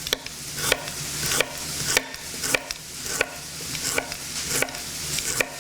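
Knife slicing through fresh ginger on a cutting board, a sharp knock at each stroke about three times every two seconds, over the steady sizzle of peach and red onion frying in butter in a pan.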